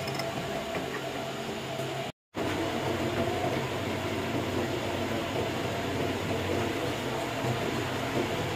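Steady mechanical hum and rumble of running workshop machinery, cut off briefly about two seconds in before it resumes.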